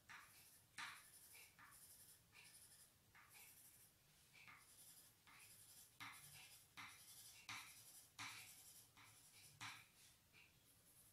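Pencil tip scratching short, quick strokes on crayon-coated paper: faint and uneven, about one or two strokes a second.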